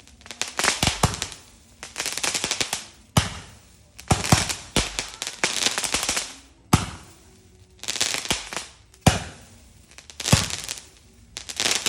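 Fireworks going off in quick succession: a sharp bang about every second or so, most followed by a spray of dense crackling that fades over about a second.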